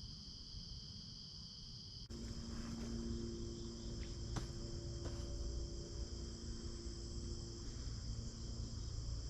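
Crickets and other insects chirring steadily in a high-pitched chorus. About two seconds in the sound changes abruptly and a low steady hum joins it, with a faint click near the middle.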